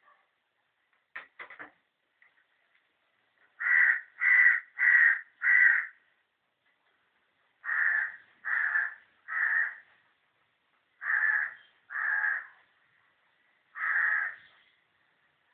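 A crow cawing in runs of calls: four quick caws, then three, then two, then a single caw near the end. A few short clicks come about a second in.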